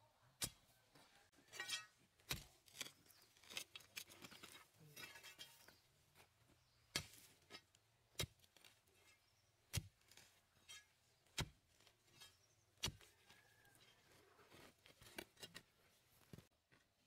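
A hoe chopping and scraping into dry, stony soil and leaf mulch: a series of sharp knocks, about one every second and a half in the second half, with crackling rustle between strokes.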